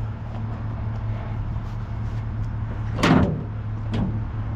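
Truck engine idling with a steady low hum, and a single loud bang about three seconds in from a truck door.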